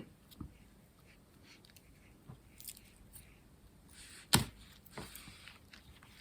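Quiet handling of paper and craft materials on a desk: light rustles and small taps, with one sharper click or tap a little over four seconds in.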